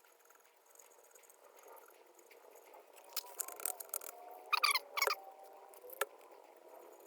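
Small handling and cleaning sounds on a socket set: soft scratchy rubbing, two short squeaks about half a second apart past the middle, then a light click.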